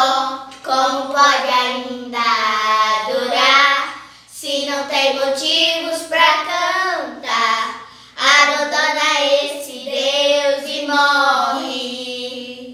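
Children's voices singing a song without accompaniment, in sung phrases with long held notes and short breaths between them.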